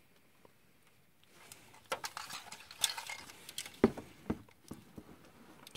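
Hard plastic transforming robot toy handled and turned over in the hand: scattered light clicks and knocks of its plastic parts, starting about a second and a half in.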